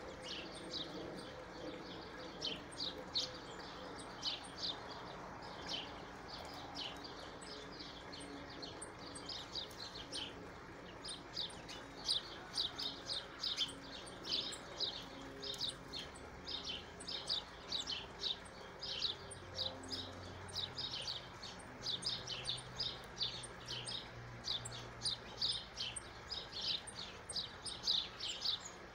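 Small songbirds chirping, many short high chirps in quick succession, growing busier about halfway through.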